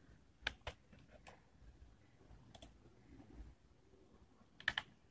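Faint, sharp clicks of a computer mouse button: a pair about half a second in, two single clicks over the next two seconds, and a louder pair near the end.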